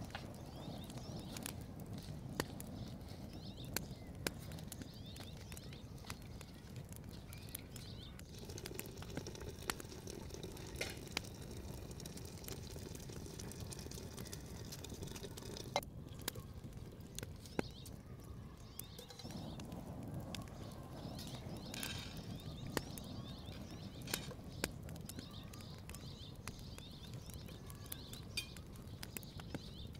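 A metal ladle stirring and clinking in a steel cooking pot over a wood fire, with scattered sharp clicks throughout. Faint birds chirp in the background.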